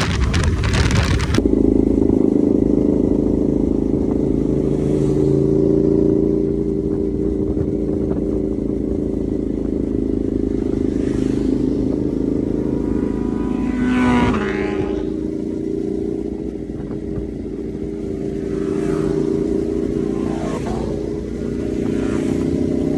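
Wind rush from riding at speed, then a sudden change to motorcycle engines running steadily as a group of bikes rides past on the road. One passes close about fourteen seconds in, its engine note dropping in pitch as it goes by.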